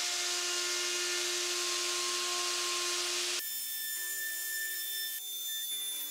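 Makita RP2301FC plunge router with a half-inch core box bit cutting a groove in MDF: a steady motor whine over loud cutting noise. About three and a half seconds in, the cutting noise cuts off suddenly and a quieter, steadier sound carries on.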